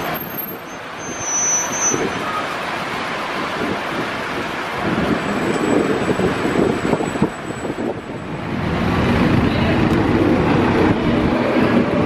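Street traffic noise, with a small flatbed truck's engine running close by and growing louder in the last few seconds as it pulls away.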